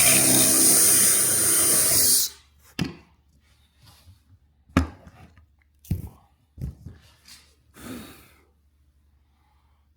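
Power drill running a bit through a pocket hole jig into wood, cutting off suddenly about two seconds in. Then a handful of separate knocks as the wood and jig are handled.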